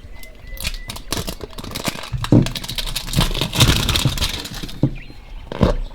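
Toy surprise packaging being torn open and handled by hand: a dense run of crinkling and rustling with a few light knocks.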